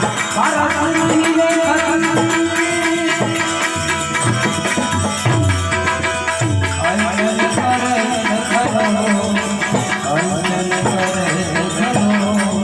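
Bhajan music: a harmonium playing sustained melody notes over steady rhythmic percussion.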